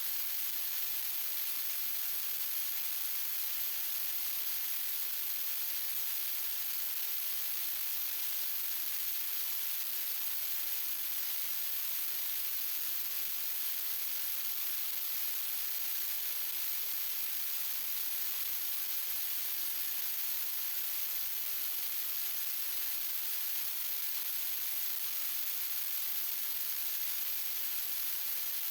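Steady, even static-like hiss, brightest in the highest pitches and never changing.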